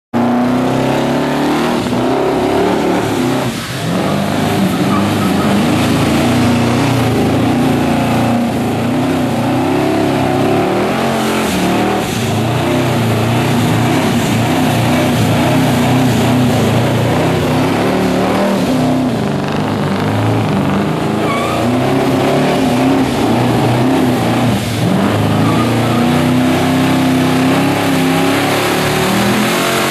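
A Chrysler Valiant's 1100 hp twin-turbo V8 is held at high revs through a long burnout, its rear wheels spinning on the pavement. The engine note wavers continuously, dipping briefly twice, a few seconds in and again near the end.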